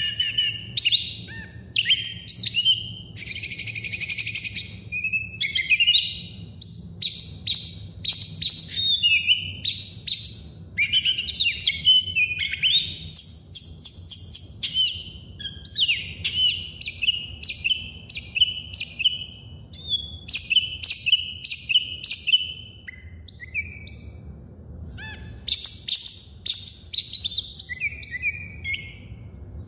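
Songbirds chirping and singing, a dense run of quick, high chirps and short whistled notes with barely a pause, and one harsh buzzing note lasting over a second about three seconds in.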